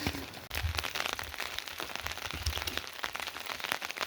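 Rain falling, a steady patter dense with sharp drip and tap sounds, with a couple of low thuds.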